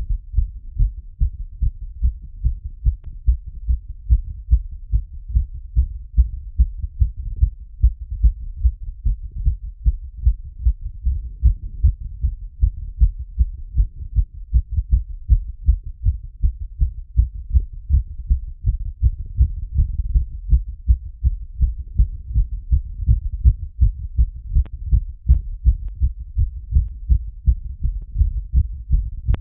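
Human heartbeat heard through a stethoscope after exercise (a workout plus squats): a quick, regular run of low, muffled lub-dub thuds.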